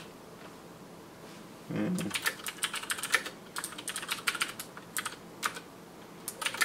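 Typing on a computer keyboard: after a quiet second and a half and a brief low sound, a quick run of keystrokes starts about two seconds in, pauses briefly near the end, then resumes.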